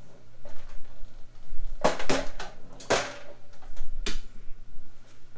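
A few sharp metallic knocks and clinks as steel parts and hardware are handled against a steel tool cart during assembly, most of them between about two and four seconds in.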